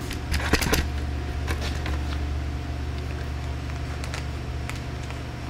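Steady low machinery hum with a faint steady whine above it, broken by a few light clicks and knocks, mostly about half a second in.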